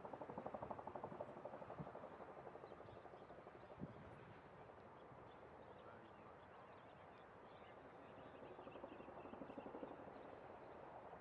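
Near silence: faint outdoor background with a low, rapidly fluttering hum and a single soft tap about four seconds in.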